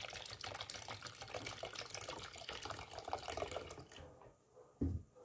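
Whole milk pouring and splashing from a carton into a metal saucepan. The pour stops abruptly about four seconds in, and a brief low thump follows near the end.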